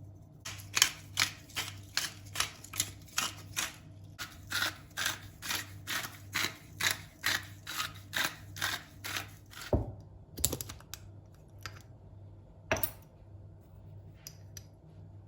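Knife chopping steadily on a cutting board, about two and a half strokes a second, stopping about ten seconds in, followed by a low thud and a few scattered knocks.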